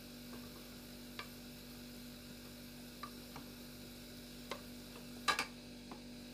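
A spoon stirring meat and vegetables in an aluminium pot, giving a few light knocks against the pot, the loudest pair about five seconds in, over a steady low hum.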